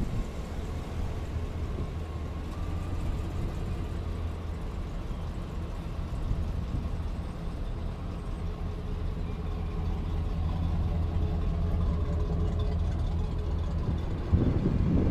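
2008 Chevrolet Silverado 2500HD work truck's engine idling steadily. Near the end, wind buffets the microphone.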